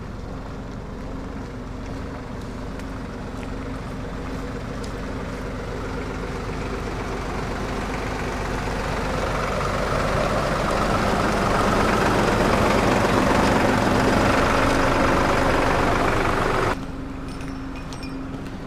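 Diesel tractor engine running as it drives up carrying a heavy crate on its front loader, growing louder as it nears. It cuts off abruptly near the end, replaced by a quieter engine running steadily.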